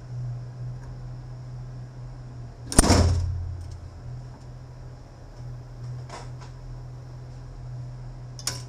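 A single loud knock of a transfer case part being handled on the bench, about three seconds in, with a short ring after it; a few lighter clicks follow near the end, over a steady low hum.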